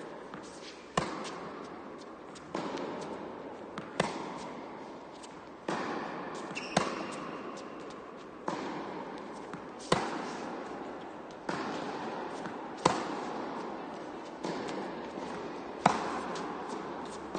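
Tennis rally in an indoor hall: sharp pops of racket strings on the ball about every one and a half seconds. The nearer player's hits are louder and the far player's softer, and each rings on briefly in the hall.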